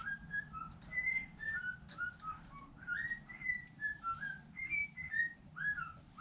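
A steady run of short, high whistle-like notes, three or four a second, each sliding up or down in pitch.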